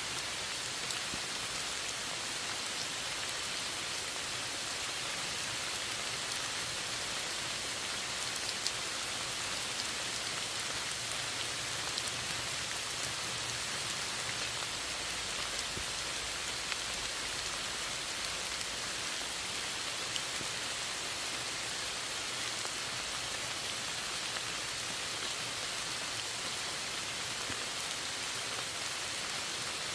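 Steady rain falling, an even hiss with many small drop patters.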